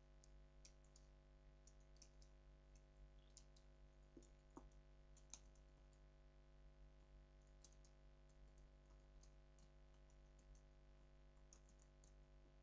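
Faint computer keyboard typing: irregular keystroke clicks as a passage is typed during a typing test, over a low steady electrical hum.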